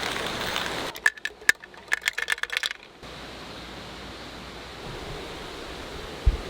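A steady hiss like rain gives way to about two seconds of quick, light metallic clinks and taps with a brief ring. These are followed by a soft steady outdoor hiss and one dull thump near the end.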